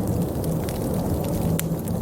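Wood fire crackling in a fireplace, with scattered sharp pops, over a steady low rush of blizzard wind.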